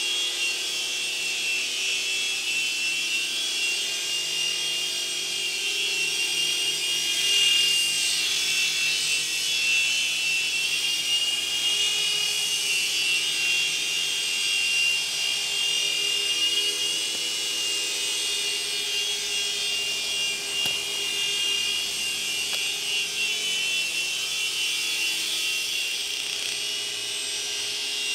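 Mini 3-channel RC helicopter with coaxial twin rotors in flight: its small electric motors and rotors make a steady high-pitched whine and buzz that swells and dips slightly as it is flown.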